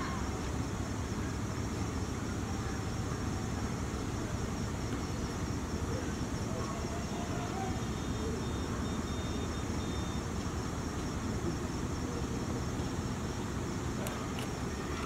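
Steady low outdoor rumble with no clear events, and a faint, short, high repeated chirp about two-thirds of the way through.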